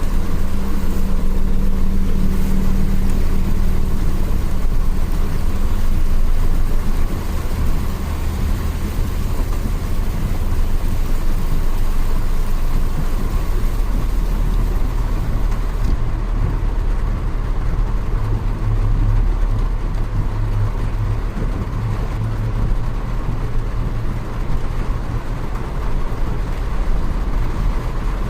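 A motor vehicle's engine running with a steady low hum under a constant rushing wash of noise.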